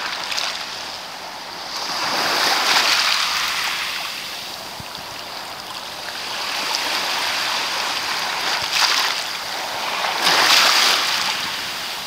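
Small surf washing onto a sandy beach, swelling and falling back in slow waves, loudest about three seconds in and again near the end.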